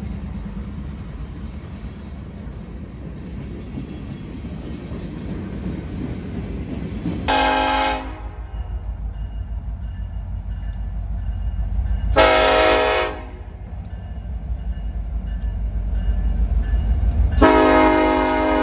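Diesel freight locomotives rumbling past a grade crossing. Then the EMD SD70ACe #1067 sounds its multi-note air horn: two short blasts about five seconds apart, then a longer one near the end, over a pulsing diesel rumble.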